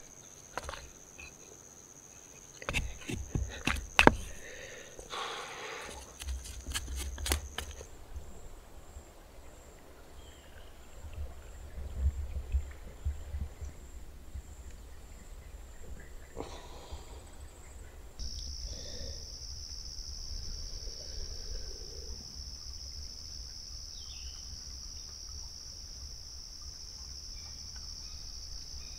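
Insects calling in a steady high-pitched drone, which stops about eight seconds in and returns at a slightly lower pitch after about eighteen seconds. A few sharp clicks and knocks in the first eight seconds, over a low rumble.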